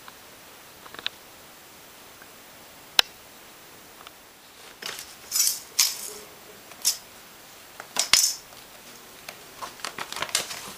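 A cat batting a plastic ruler around on a rug and tile floor: a sharp click about three seconds in, then short scraping and rustling strokes, then a run of light clicks and scratches near the end.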